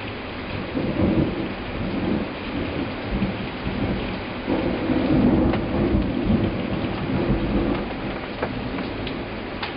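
Thunder rumbling in two long rolling swells, the first about a second in and the second, louder and longer, from about halfway, over the steady hiss of heavy rain from a sudden summer downpour.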